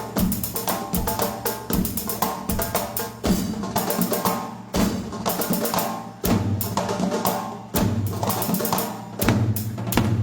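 Music: an instrumental passage of a Tunisian folk song, driven by fast, dense percussion strokes over a sustained melodic line, with a heavier low drum part coming in about six seconds in.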